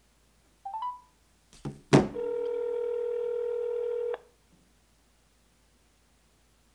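A smartphone on speakerphone placing an outgoing call. A short rising beep comes about a second in, then a sharp knock as the phone is set down on the table, then one two-second ring of the ringback tone: a steady, slightly buzzy tone heard through the phone's speaker.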